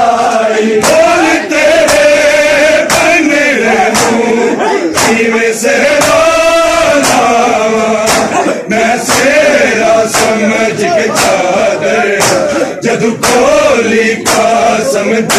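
A men's chorus chants a Punjabi noha (mourning lament) in unison over the crowd's chest-beating (matam): open-handed slaps on bare chests in a steady rhythm, roughly one every two-thirds of a second.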